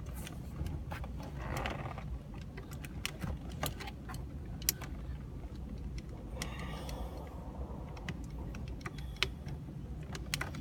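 Irregular light plastic clicks and small knocks of the gear shift console trim and bulb socket being handled and fitted back, over a low steady hum.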